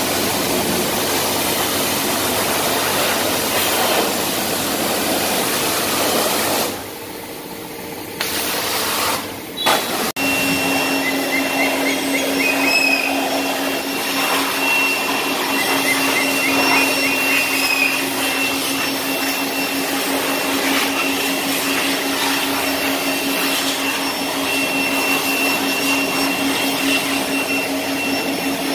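Hot-water pressure spray hissing into a car's engine bay, then, after a cut about ten seconds in, a handheld electric air blower running steadily with a constant motor whine as it blows the engine bay dry.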